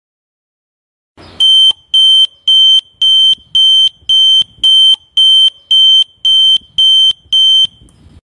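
Built-in alarm siren of a DNI6918 natural gas and LPG detector sounding: twelve short, high-pitched beeps, about two a second, starting a little over a second in.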